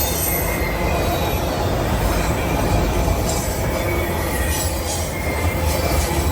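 CSX freight train rolling past on the rails: a steady low rumble of wheels and cars, with a faint high wheel squeal running over it.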